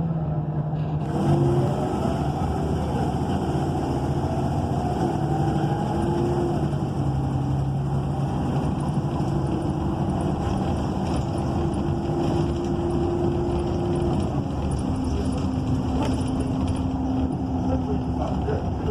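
Inside a city bus moving off: the Cummins Westport ISL G natural-gas engine and Allison automatic transmission running under way, with a rising whine as it picks up speed a second or two in. The engine note steps down about fourteen seconds in.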